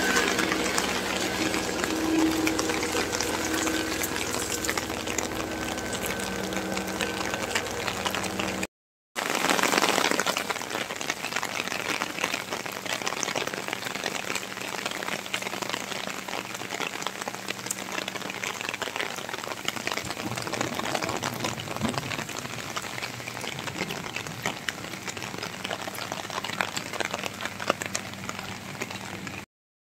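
Steady rain falling on wet paved ground and foliage, a continuous hiss of drops. A faint steady hum lies under it for the first several seconds, and the sound cuts out briefly about nine seconds in and again near the end.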